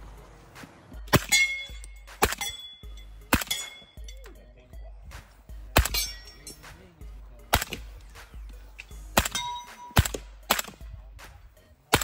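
Suppressed 300 Blackout Daniel Defense PDW being fired, about eight single shots at irregular intervals a second or two apart. Several shots are followed by a brief metallic ringing.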